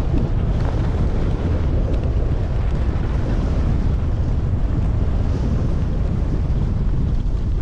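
Wind buffeting the microphone of a camera carried by a skier going downhill, a steady low rumble with no let-up.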